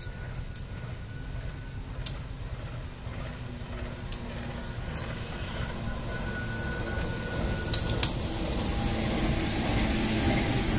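Diesel-electric locomotive (KAI CC201) approaching and passing with a parcel train, its engine rumble growing steadily louder as it nears. A few sharp clicks punctuate it, the loudest a close pair about three-quarters of the way through.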